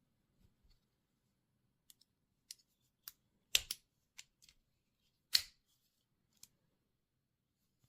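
A folding multitool being handled: a series of short, sharp metal clicks and snaps, two of them much louder about halfway through.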